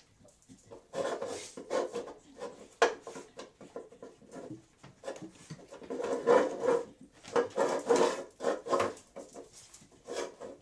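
Two beagles at their food: irregular scraping, rubbing and sniffing, in clusters, with one sharp knock about three seconds in.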